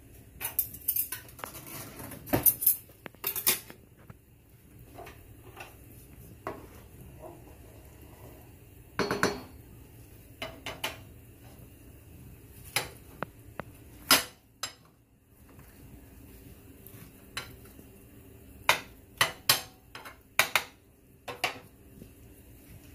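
A metal spoon and cookware clinking and knocking against a frying pan and dishes. The sharp clicks come in scattered clusters: several in the first few seconds, one longer scrape-like clatter around the middle, and a quick run of clicks near the end.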